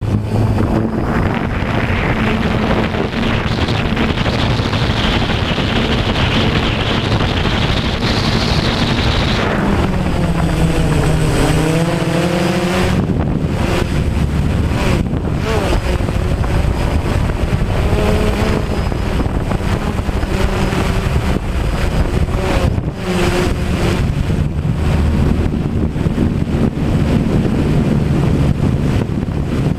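DJI Phantom quadcopter's motors and propellers whining, with heavy wind rumbling on the microphone. The motor pitch wavers up and down about ten to thirteen seconds in.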